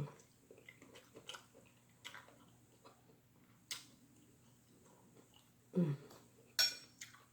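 A person chewing food with soft, wet mouth clicks. About six seconds in there is a short hummed sound, followed by a brief, sharp noisy sound.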